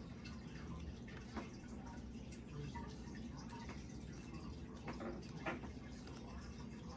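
Quiet room with a few faint clicks and taps from small objects being handled at a table, the clearest about a second and a half in and again near the end.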